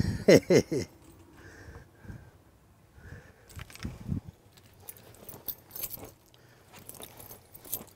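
A short louder sound in the first second. Then faint scattered clinks, clicks and rustles of someone moving through a cramped camper interior, with a little light jingling.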